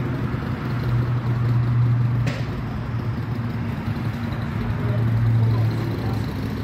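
A motor vehicle's engine running, a steady low hum that swells twice, with a single click about two seconds in.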